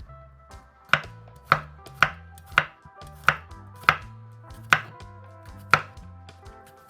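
Knife chopping on a cutting board: about eight separate chops, spaced irregularly half a second to a second apart, over soft background music.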